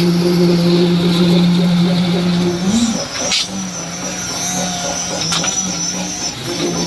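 Construction machinery at a concrete pour running with a steady, loud hum, its pitch wobbling briefly about three seconds in, with a couple of short clicks.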